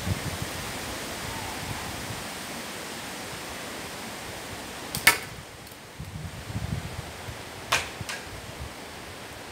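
Steady wind noise with low gusts buffeting the microphone, broken by two sharp cracks about two and a half seconds apart, the first the louder, from slingshot shooting.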